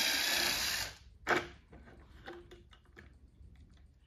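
Cordless drill running as it bores a hole through a PVC pipe, stopping abruptly about a second in, followed by a sharp click and a few fainter clicks and taps.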